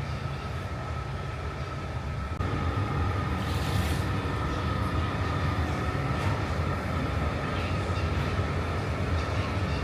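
Steady low rumble of a moving vehicle heard from inside, with a steady high whine above it; it gets louder about two and a half seconds in.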